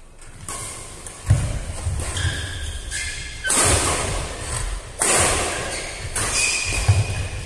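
Doubles badminton rally played with a plastic shuttlecock: racket strikes on the shuttle, thudding footsteps and squeaking shoes on the court mat, with a jump smash and landing near the end.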